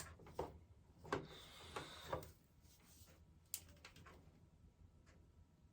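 Several faint clicks and taps of plastic ring-light parts being handled and fitted together, spaced out over the first few seconds, then quiet room tone.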